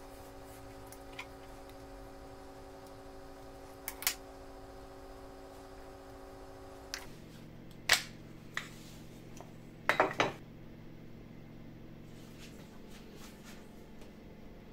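Scattered sharp clicks and knocks of a steel plane iron and wooden plane body being handled and set down on a workbench, the loudest cluster about ten seconds in, over a faint steady hum.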